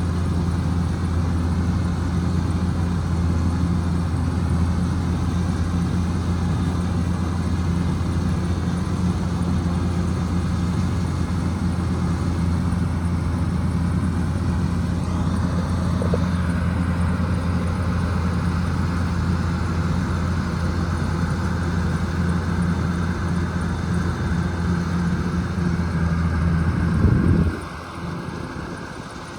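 Kubota DC105X combine harvester running with a steady, even drone. Near the end the sound swells briefly, then drops off suddenly.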